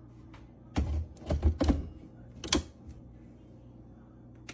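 Knocks and clicks from handling the filled container of oats and milk: a cluster of them about a second in, then one more knock about two and a half seconds in.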